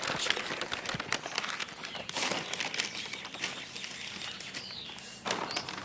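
Large sheets of newspaper rustling and crinkling as they are handled and folded, with irregular crackles throughout.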